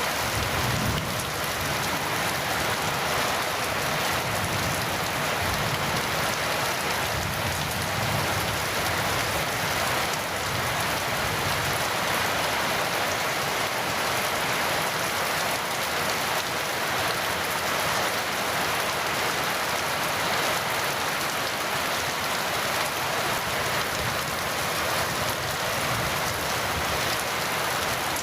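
Heavy rain falling steadily, an even, unbroken hiss of drops on surfaces.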